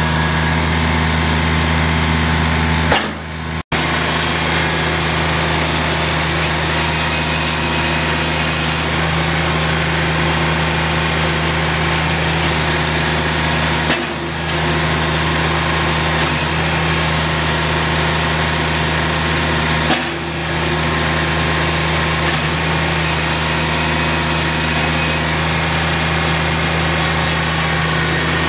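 Kubota BX2200D compact tractor's three-cylinder diesel (Kubota D905) running at a steady speed, with short breaks about 3, 14 and 20 seconds in.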